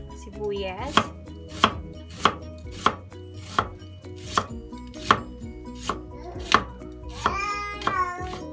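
Chef's knife slicing a red onion on a wooden cutting board, each stroke ending in a sharp knock of the blade on the board, steadily, about three strokes every two seconds.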